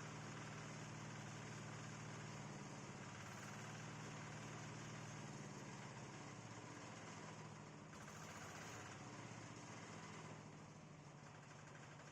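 Organic-waste shredding machine running with a steady motor hum, a little fainter in the last few seconds.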